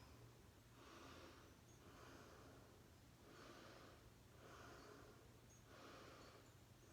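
Faint breathing close to the microphone: a steady series of breaths in and out, about one a second, over a low hum.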